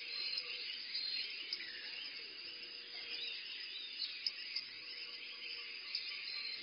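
Forest ambience: many small birds chirping and twittering over a bed of insect calls, with a few sharp clicks.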